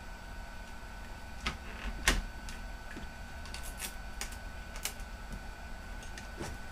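Scattered light clicks and taps of laptop parts being handled during disassembly, with the sharpest knock about two seconds in, over a faint steady electrical hum.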